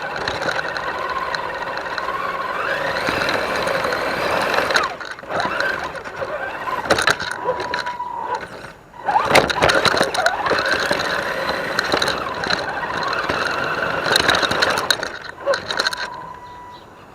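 Axial SCX10 DeadBolt RC truck's electric motor and gears whining as it drives over rocks, the pitch rising and falling with the throttle. The whine stops briefly a few times, and there are sharp clicks and knocks.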